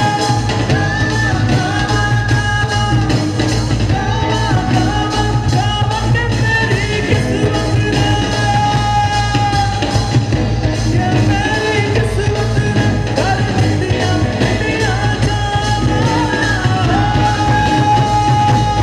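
Live band playing an upbeat song through a PA system: a singer holds long notes over a steady drum beat and heavy bass.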